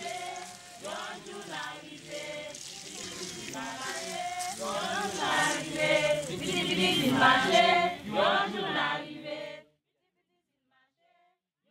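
A group of voices singing together, choir-like and unaccompanied, growing louder in the middle. It stops abruptly about ten seconds in.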